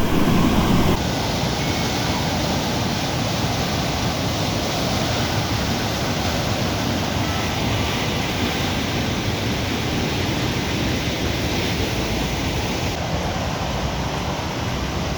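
A forest waterfall swollen by flood water, falling with a steady, even roar.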